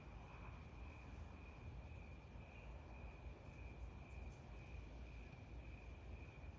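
A faint, steady high-pitched insect chorus of crickets, over a low rumble.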